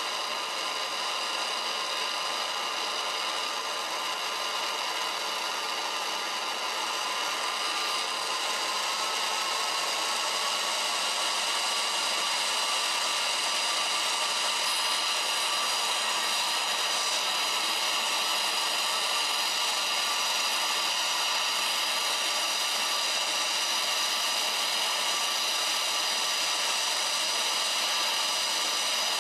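Gas torch flame hissing steadily into a ceramic melting dish while it melts silver grains, with a faint whistling tone in the hiss; it gets a little louder about eight seconds in.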